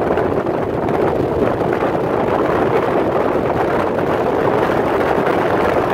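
Steady road and wind noise of a moving car, heard from inside the cabin.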